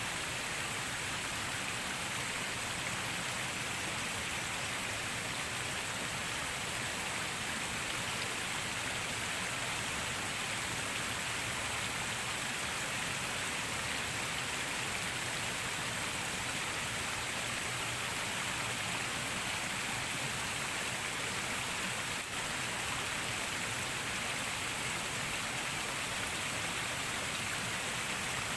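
Steady, even hiss of water, with nothing else standing out.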